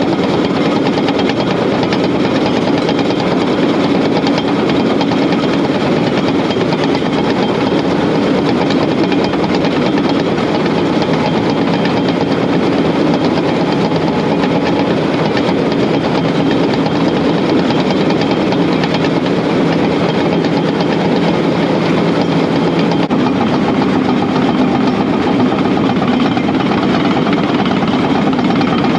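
Caterpillar D6K bulldozer's diesel engine running steadily and loudly while the machine moves on its tracks.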